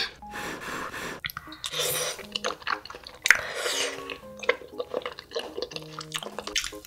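Light, playful background music of short plucked notes over close-miked wet chewing of cream tteokbokki, with louder mouth sounds about two and three and a half seconds in.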